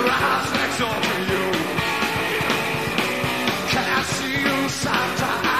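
A rock and roll band playing live: electric guitar over bass and drums keeping a steady, driving beat.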